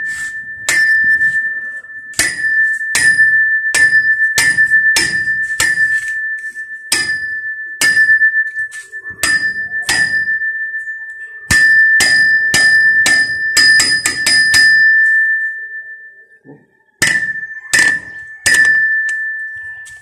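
Something hard struck over and over, each strike ringing out on the same clear high note, in an uneven rhythm with a quicker flurry of taps about two-thirds of the way in and a short pause before the last few.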